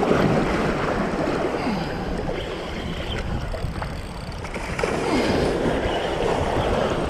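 Sea waves washing and splashing against shoreline rocks, surging at the start and again about five seconds in, with wind on the microphone.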